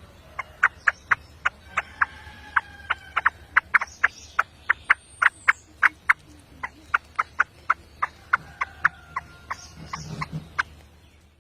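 A rapid series of short, sharp animal calls, about three a second and irregularly spaced, with a few faint drawn-out tones between them.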